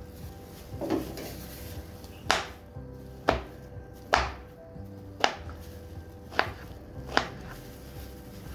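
A knife chopping food on a cutting board: six sharp separate chops, roughly a second apart, after a softer knock about a second in.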